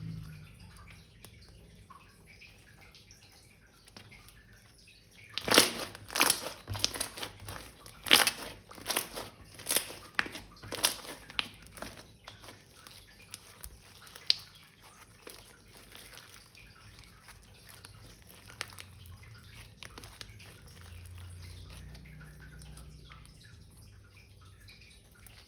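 Slime being squeezed and worked by hand, giving a run of sharp crackling pops for several seconds, then only occasional single clicks.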